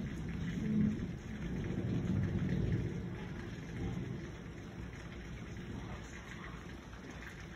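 Thunder rumbling, loudest over the first three seconds and then dying away, over steady rain.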